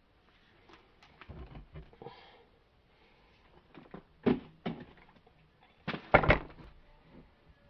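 Metal clanks and knocks as a Ford Super Duty front axle shaft with a U-joint is handled and set in a steel bench vise. There are a few light knocks, two louder ones past the middle, and a loudest cluster of three close knocks about six seconds in.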